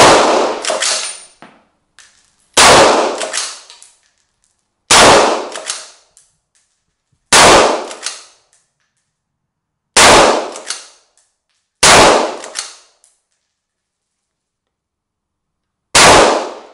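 Seven shots from an LMT Ultramatch straight-pull AR-15 in .223 Remington, fired one at a time at an uneven pace with a longer pause before the last. Each shot is followed by about a second of echo.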